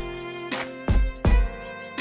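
Background music: held melodic tones over a beat of low thumps.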